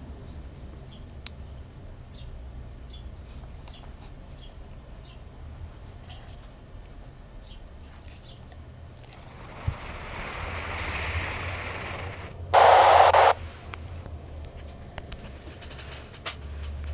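Handheld VHF radio giving off static: a hiss that swells up, then a short loud burst of noise under a second long that cuts off sharply. Faint ticks and a low hum sit underneath.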